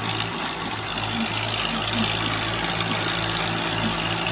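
Diesel engines of a Swaraj 855 and a Massey Ferguson tractor running steadily under heavy load as the two pull against each other in a tug-of-war, rear tyres spinning in loose dirt.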